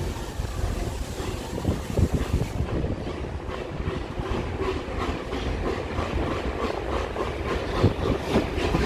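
Steam locomotive and tender rolling slowly past along a platform, with low rumbling and a steady run of evenly spaced wheel clicks over the rail joints.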